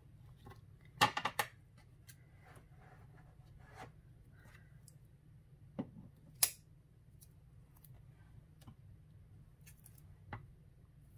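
Paper-crafting handling noises on a cutting mat: a quick cluster of sharp taps about a second in, two more clicks around the middle, and a single scissor snip near the end as a strip of foam tape is cut.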